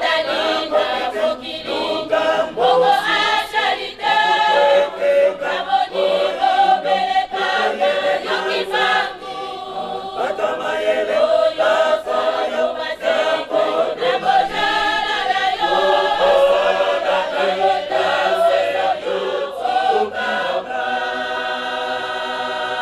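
Mixed choir of men and women singing a church hymn in harmony, ending on a long held chord near the end.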